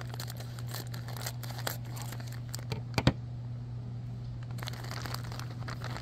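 Thin clear plastic toy bag crinkling and tearing as it is opened by hand, with a pair of sharp clicks about halfway through.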